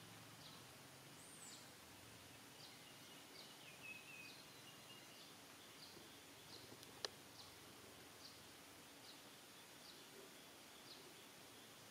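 Faint outdoor ambience with a short high chirp repeating a little faster than once a second, and a single sharp click about seven seconds in.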